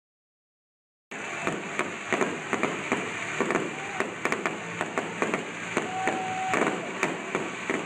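Fireworks popping and crackling in a rapid, uneven string of sharp bangs. They start suddenly about a second in and cut off abruptly at the end.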